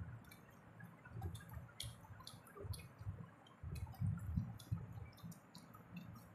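Close-up chewing of momo chatpate with crunchy Kurkure pieces in it: many small crisp crackles and wet mouth clicks over soft, irregular chewing thuds.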